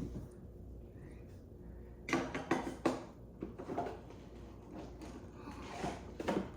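Household handling noises: a cluster of sharp clicks and knocks about two to three seconds in, softer ones after, and another sharp knock near the end, as things on a counter are moved and opened.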